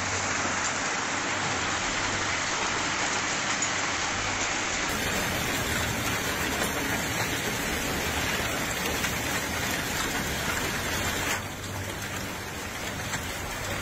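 Heavy rain and hail coming down hard: a dense, steady hiss of falling precipitation with fine pattering ticks. The sound changes character about five seconds in and eases off a little near the end.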